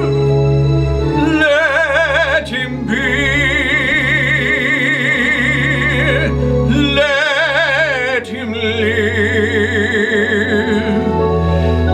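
Operatic singing: long held notes with wide vibrato over a sustained low accompaniment, with short breaks between phrases.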